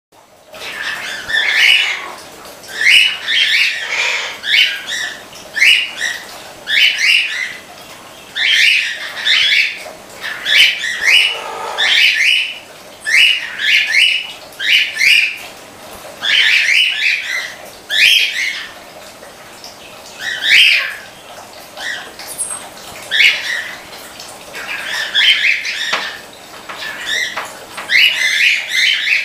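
Pet birds in an aviary chirping and squawking over and over: short, loud, high calls in quick clusters of two to four, repeating about every second or two.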